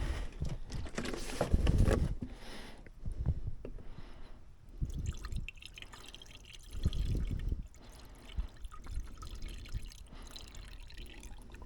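Water being poured into a cooling system's filler to refill it, going in unevenly with dripping and splashing.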